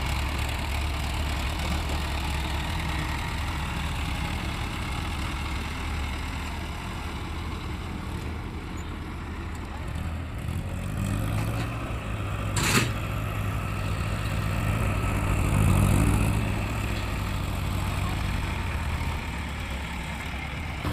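A heavy vehicle's engine running steadily, with one sharp click about two-thirds of the way through and the engine rising briefly a few seconds later.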